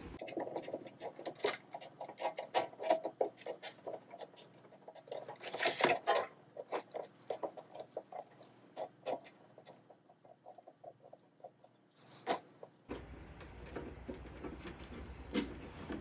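Unfastening the ground wire's screw and locking nut from a microwave oven's metal chassis by hand: a string of light clicks, taps and scrapes of small metal parts, with a louder rattle about six seconds in and another near twelve seconds.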